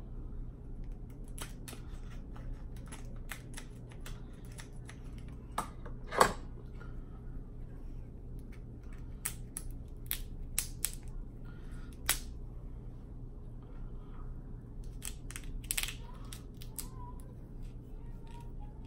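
A small lobster tail's shell is snipped with kitchen scissors, then cracked and pulled apart by hand. It comes as a series of sharp cracks and snaps, the loudest about six seconds in.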